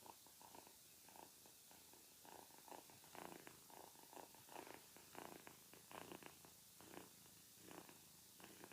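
Faint cat purring sound effect, coming in short uneven pulses that are strongest in the middle, over a steady hiss.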